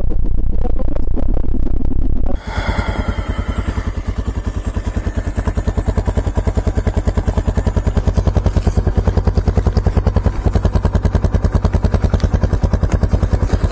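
Background music for about two seconds, then a sudden cut to a small motorcycle engine, the Wels MX250, idling with an even, rapid pulsing beat.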